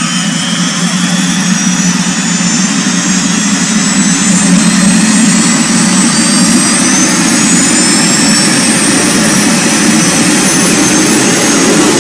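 Turbine-powered motorcycle engine running with the bike standing still: a steady jet-like rush under a high whine that slowly climbs in pitch, and the sound grows a little louder about four seconds in.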